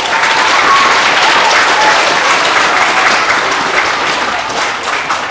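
An audience applauding, the clapping swelling at the start, holding, then tapering off near the end.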